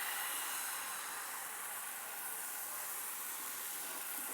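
Pancake batter sizzling steadily in hot oil in a frying pan.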